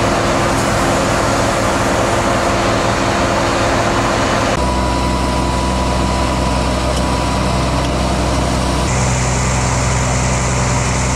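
Fire engine's diesel engine running steadily, a low hum whose pitch and tone shift abruptly about four and nine seconds in.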